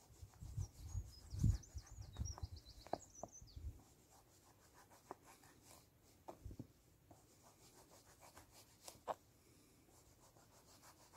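Small knife slicing a chorizo sausage on a plastic chopping board: soft scattered cuts, scrapes and taps as the blade meets the board. A bird sings briefly in the first few seconds, over some low thuds, the loudest of them about a second and a half in.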